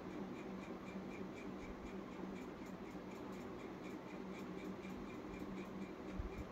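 Hot oil sizzling faintly with light, steady crackling around kova kajjikayalu deep-frying in a steel kadai, over a steady low hum.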